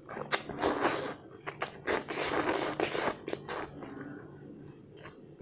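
A person slurping Maggi curry instant noodles in long noisy draws, one about a second in and a longer one from about two to three seconds in, with wet chewing clicks between and after them.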